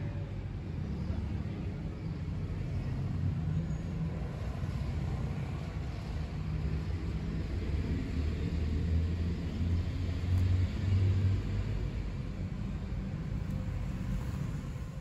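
Steady low rumble of nearby street traffic, swelling about eight to eleven seconds in, as a car passes.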